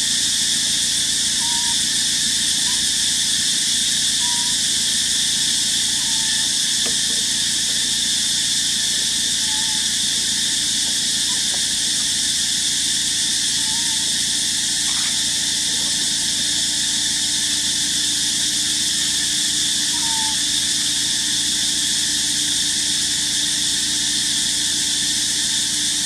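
Dense, steady high-pitched insect chorus, unbroken throughout, with faint short chirps every second or two.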